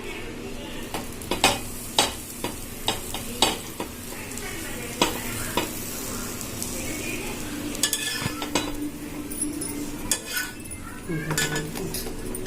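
A bread sandwich toasting in butter in a hot pan, sizzling steadily, with many sharp clicks and scrapes of a spatula against the pan as it is pressed and turned.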